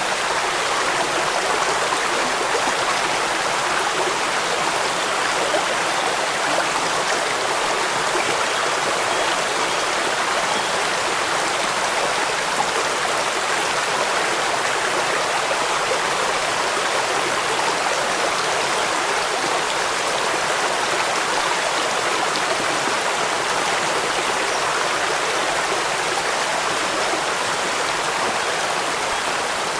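A stream running over rocks, a steady even wash of water sound with no breaks.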